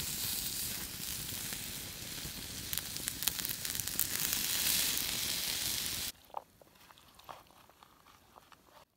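Food skewers sizzling on a wire grill grate over a wood campfire, a steady hiss with fine crackling. It cuts off suddenly about six seconds in, leaving only a few faint clicks.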